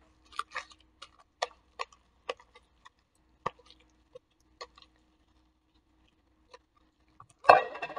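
Sticky homemade glue slime being scraped and pulled out of a clear plastic bowl by gloved hands: scattered small irregular clicks and pops, then a quiet stretch and a short, louder burst of handling noise near the end.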